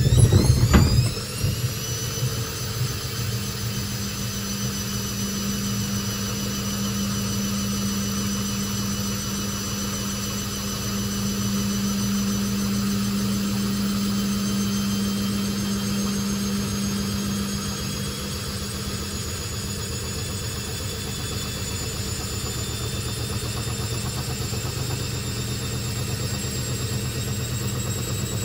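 Hoover VisionTech VTS715D21X washing machine speeding up into a spin: a quickly rising motor whine with loud knocks in the first second or so as the drum ramps up, then a steady spinning drone with a high whine that slowly rises in pitch. The knocking fits the machine jumping on a strained suspension.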